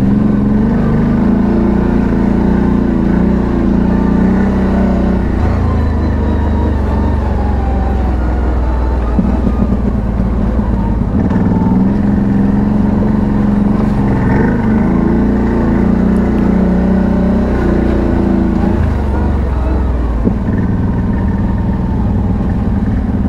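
ATV engine running while riding, its speed rising and falling several times with the throttle.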